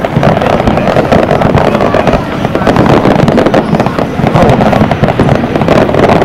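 Aerial firework shells bursting in quick succession, a dense, continuous barrage of bangs and crackles with no pause.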